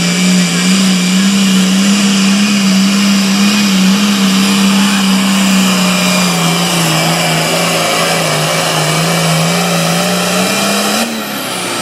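Super farm pulling tractor's diesel engine running hard under load down the track, a loud steady drone whose pitch wavers and sags slightly, then the engine backs off abruptly near the end.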